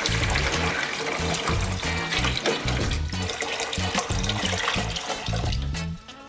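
A stream of water poured into a Playmobil toy aquarium's clear plastic tank, splashing as the tank fills, with background music playing. The pouring stops shortly before the end.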